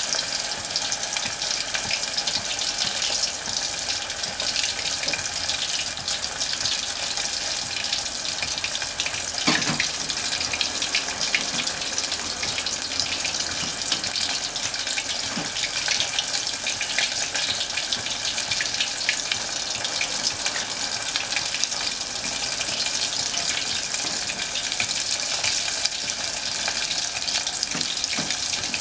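Bone-in beef short ribs deep-frying in hot oil: a steady, dense sizzle full of fine crackling.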